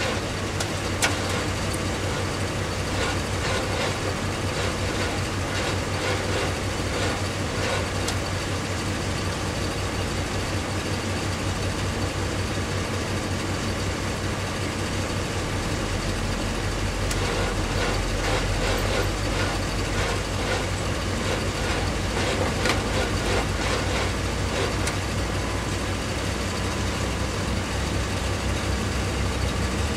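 A vehicle engine idling steadily while it charges a flat truck battery through jumper cables. Faint irregular ticking and rattling comes and goes over it.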